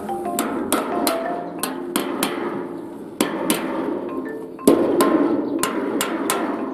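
Hammer striking metal in quick, irregular blows, about two or three a second, with the heaviest blow about two-thirds of the way through. Light marimba-style background music plays underneath.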